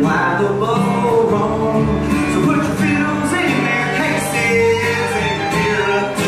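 Bluegrass band playing live: acoustic guitar, fiddle, banjo, mandolin, dobro and upright bass, with a male lead voice singing over them.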